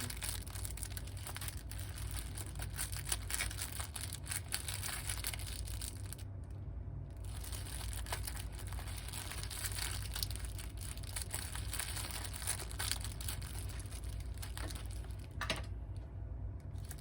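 Thin plastic packaging crinkling and rustling as it is handled, with irregular crackles and short pauses about six seconds in and near the end, over a steady low hum.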